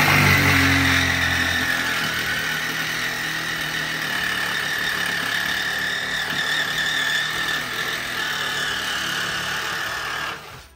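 Cordless reciprocating saw cutting through an old steel carriage bolt in a wooden beam, running steadily and loudest in the first couple of seconds. It stops shortly before the end.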